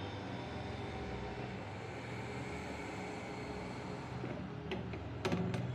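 Steady low hum, with a few sharp clicks and a rattle near the end as the fan's wire guard is handled.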